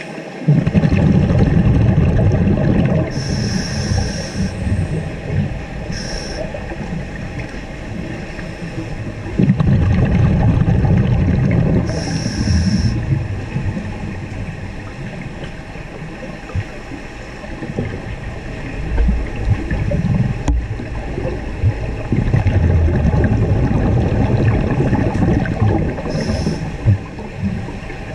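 Scuba breathing heard underwater: three long bursts of bubbling from exhaled air, each followed by a short hiss as the diver inhales through a regulator.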